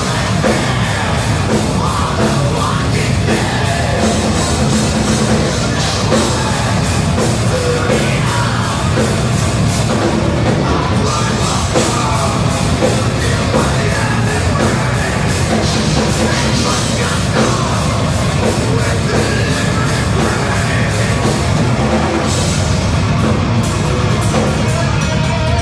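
Heavy rock band playing live and loud: electric guitars, bass guitar and a drum kit, with fast, even drumming.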